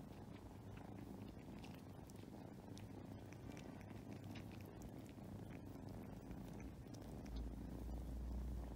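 Kitten purring close up, a steady low rumble that grows louder near the end, with faint ticks of licking as the kittens groom each other.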